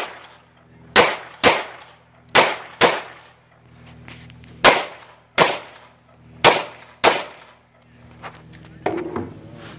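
Pistol fired eight times in four quick pairs, the two shots of each pair about half a second apart, with a second or two between pairs.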